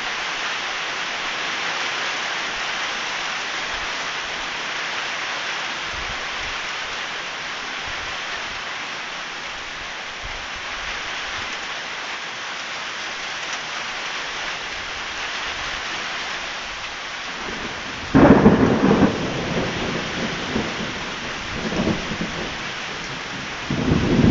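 Steady heavy rain hissing, with a sudden loud thunderclap about three-quarters of the way in that rumbles on for a few seconds. A smaller rumble follows, and another loud clap comes right at the end.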